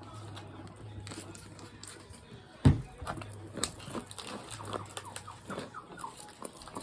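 A hairbrush drawn through long hair in a run of short, scratchy strokes, with one loud thump about two and a half seconds in.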